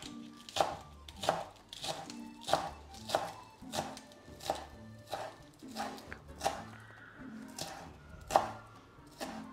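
Kitchen knife slicing a leek into thin rounds on a cutting board: a steady run of chopping strokes, about one and a half a second.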